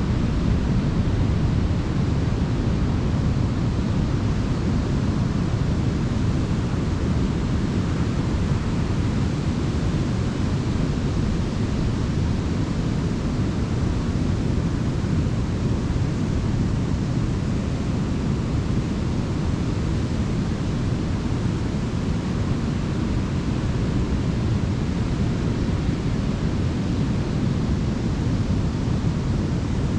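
Ocean waves breaking and washing onto a beach: a steady, even rush with no single crash standing out.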